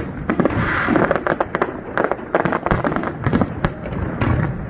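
Aerial firework shells bursting overhead in a rapid, dense run of sharp bangs, many a second.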